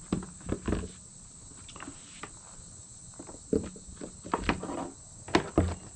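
Scattered clicks, knocks and rustles of meters and test equipment being handled, a sharp click about five seconds in the loudest, over a steady high-pitched hiss and low hum.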